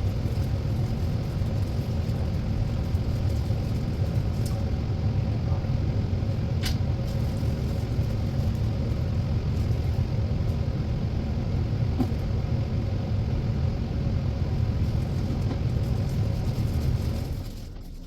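A steady low rumble with a few faint clicks in it, cutting off abruptly near the end.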